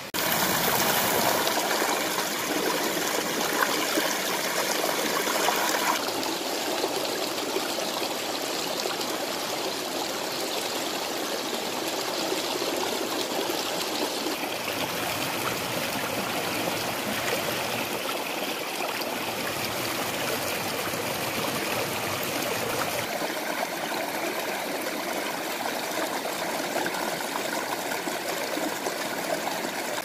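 Shallow mountain stream running over rocks: a steady rush and trickle of water. Its tone shifts abruptly about 6, 14 and 23 seconds in, and it is loudest in the first few seconds.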